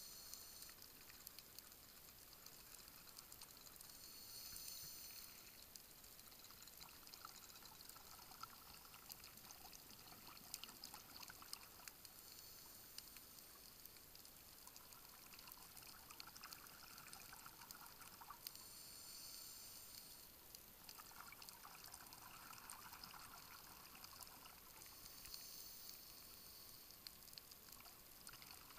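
Heard underwater: scuba divers' exhaled breath bubbling from their regulators, coming in several separate bursts over a steady faint hiss.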